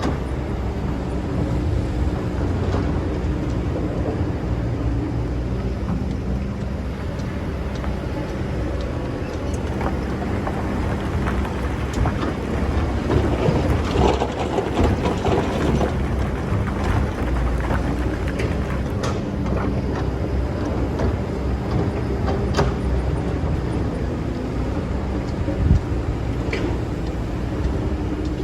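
Excavator's diesel engine running steadily while it digs sand, with occasional sharp knocks.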